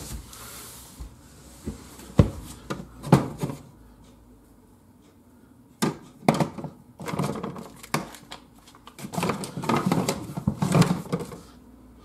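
Items being handled in a refrigerator's plastic door shelves: scattered knocks and light clatter, busier in the second half.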